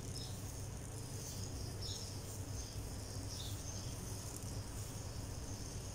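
Faint, steady sizzling hiss of moong dal dosa (pesarattu) batter on a hot nonstick tawa kept on low flame, over a low steady hum.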